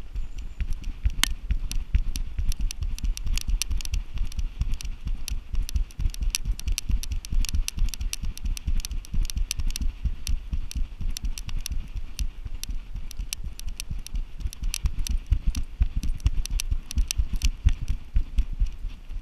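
Harness-mounted GoPro Hero3 jolted by each stride of a running giant schnauzer: rapid rhythmic low thumps, with sharp clicks and rattles from the camera and its mount.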